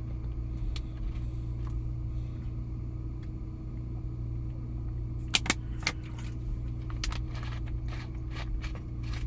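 Steady low mechanical hum, with scattered sharp clicks and a brief cluster of louder crackles about five and a half seconds in.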